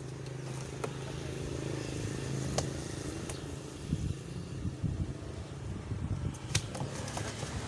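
A small engine running steadily with a low hum, a little louder in the middle, with a few sharp clicks over it.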